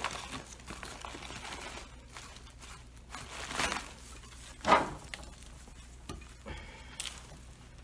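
Plastic topsoil bag crinkling as soil is poured from it into a planter and pressed in by hand, with a few brief louder rustles, the loudest a little past halfway.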